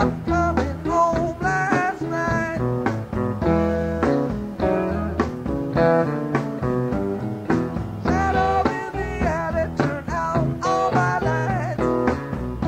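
Live rock band playing a bluesy mid-tempo song: electric guitar lines over bass and drums, with a voice singing in places.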